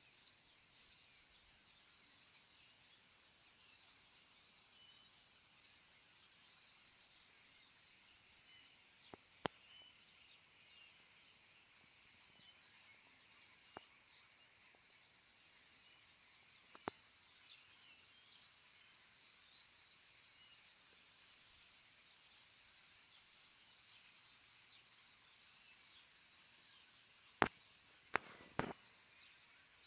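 Many small birds chirping and twittering in a faint, continuous high-pitched chorus. A few sharp clicks stand out about a third of the way in, again a little past halfway, and three close together near the end.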